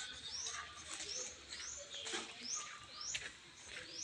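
Short high-pitched squeaks repeating about twice a second, each rising quickly and then holding, with faint clicks in between.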